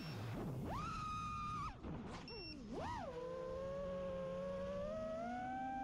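FPV quadcopter's brushless motors whining: the pitch rises quickly, holds high for about a second and drops off. It then swoops up and down once and settles into a steadier, lower whine that creeps slowly higher.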